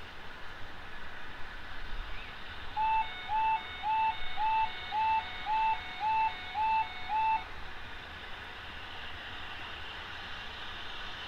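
An electronic warning beeper sounding nine evenly spaced high beeps, about two a second, then stopping.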